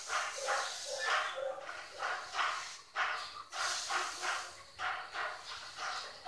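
A dog barking over and over, two or three short barks a second.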